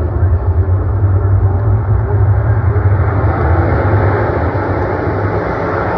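A pack of dirt-track race cars running together around the oval: a loud, steady, low engine drone with no break.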